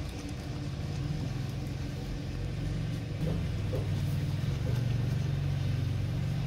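A steady low motor drone, slowly getting louder, dominates. Under it a dog laps milk from a plastic container, heard only as faint wet ticks.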